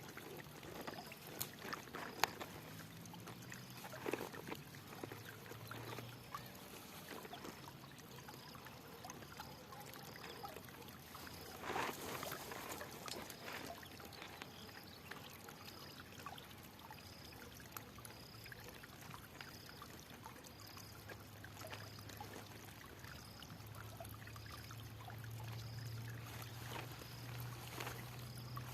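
Water flowing and trickling, with scattered small splashes and drips, the clearest about twelve seconds in.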